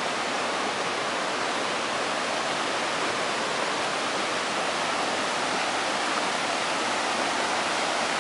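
Flooded creek rushing steadily in spate: a continuous, even hiss of fast-moving water.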